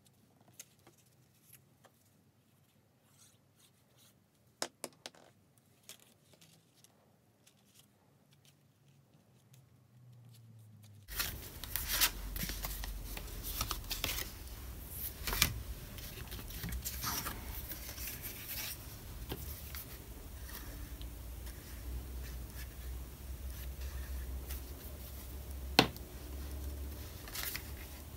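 Sheets of cardstock and patterned paper being handled on a craft mat: soft rustling and sliding of paper with a few light taps and clicks as the pieces are lined up and pressed down onto a card base. The first part is very faint; about eleven seconds in the sound turns louder, with a low hum under the rustling.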